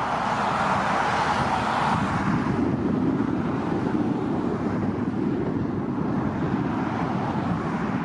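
Jet engine noise of a landing private jet, a steady rush that is brighter for the first two seconds and then drops lower. Wind buffets the microphone throughout.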